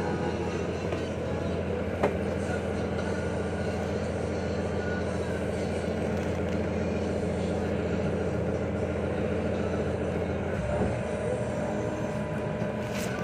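Passenger ferry's engine running steadily under way, a constant drone with several held low tones, heard from inside the passenger cabin. A single sharp click about two seconds in.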